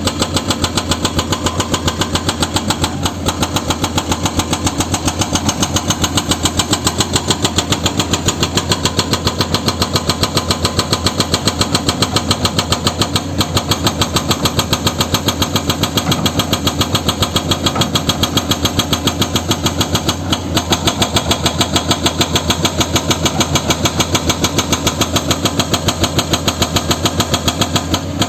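Heavy excavator's diesel engine running steadily, with an even, rapid pulsing beat.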